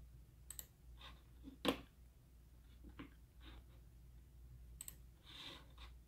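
Faint computer mouse button clicks, a few spaced over several seconds, the loudest a little under two seconds in.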